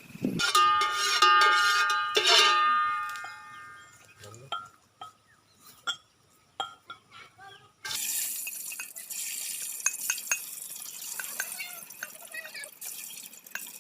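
A metal cooking pot or utensil clanks and rings out twice in quick succession, followed by a few light clicks of utensils. About halfway through, a steady hiss starts and keeps going.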